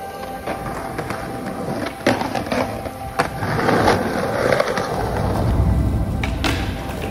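Skateboards rolling on concrete, with several sharp clacks of boards popping and landing tricks. A deep wheel rumble swells in the second half.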